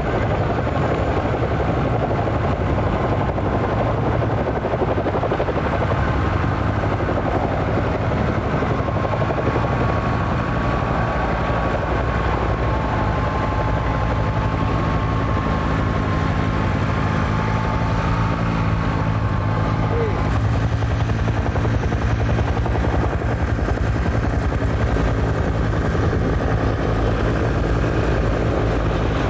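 Helicopter running steadily, a fast even beat of rotor and engine, with a faint thin whine that holds for several seconds near the middle.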